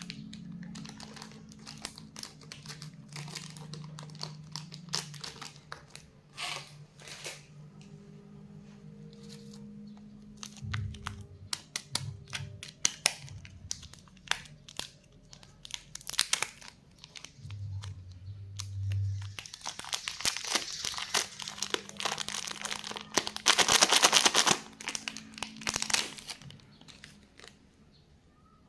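Plastic lollipop wrappers crinkling and tearing in irregular crackles. A dense, louder stretch of crinkling comes about two-thirds of the way through.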